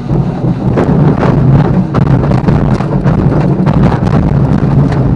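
Glider touching down and rolling on its main wheel over a rough grass airfield: a loud rumble with many irregular knocks and rattles through the airframe.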